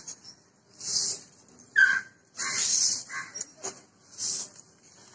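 Bundle broom swept over a concrete floor in several short, scratchy strokes, spaced about a second or so apart.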